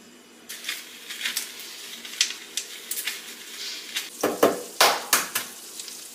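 Pesto sauce sizzling in a hot frying pan as a spoon scrapes and clinks against the pan, with a few louder knocks about four to five seconds in.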